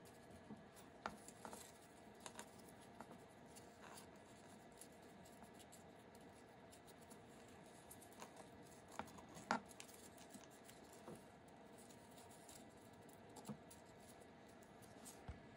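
Faint handling of origami paper: scattered soft rustles and crisp little clicks as a sheet is folded and creased by hand, the sharpest about halfway through, over a faint steady hum.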